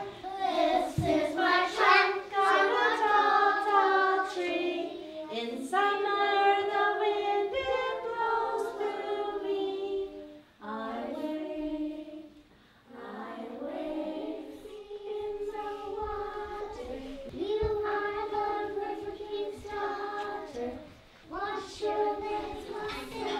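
A woman and a group of young children singing a song together, with long held notes and a couple of short breaks about halfway through.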